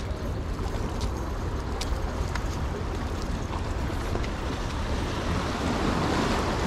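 Wind rumbling on the microphone over sea water washing against the rocks, the wash swelling a little near the end, with a few faint clicks.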